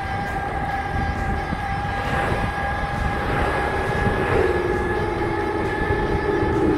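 Passenger train running, a low rumble under several steady high whining tones. From a little past halfway a lower tone slides slowly down in pitch.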